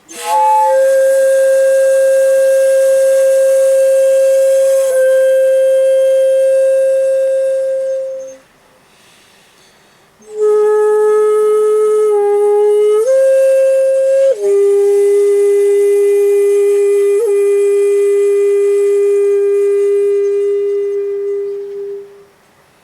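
Solo shakuhachi playing long held notes in two breaths. The first is a long steady note, opening with a brief higher grace note. After a pause of about two seconds, a second phrase steps up briefly and settles on a long, slightly lower note. Breath noise is audible in the tone throughout.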